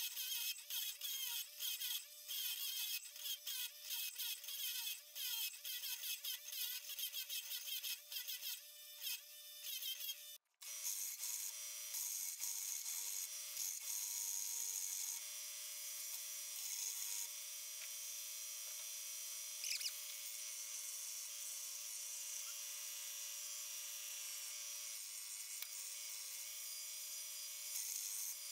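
Ryobi bench grinder grinding a steel rounding-hammer head, the sound stop-start with a wavering note as the metal is pressed on and eased off the wheel. After a short break about ten seconds in, a belt sander grinds the hammer head with a steadier rasping noise and an even hum.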